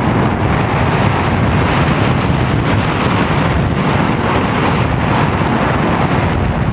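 Steady, loud rush of wind over the onboard camera's microphone on a Sky Surfer RC glider flying in an unpowered glide.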